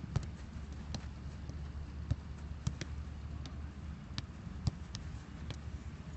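Footballs being kicked and bouncing on grass in a passing drill: irregular sharp thuds of foot and ball, about ten in six seconds, over a steady low rumble.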